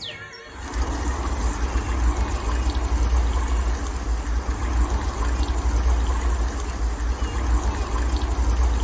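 Steady rush of flowing river water with a heavy low rumble, starting abruptly about half a second in.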